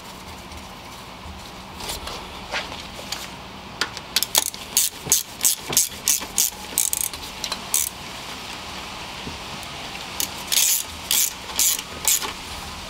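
Socket ratchet clicking as a 10 mm bolt on the alternator bracket is turned in. There are two runs of quick clicks, about four seconds apart.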